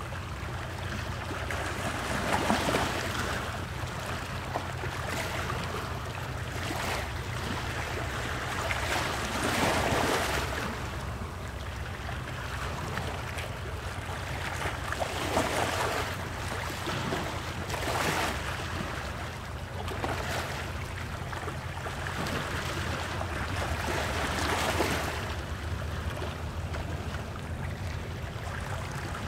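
Ocean waves washing ashore in steady surf, with each wave swelling and breaking every few seconds over a constant low rumble.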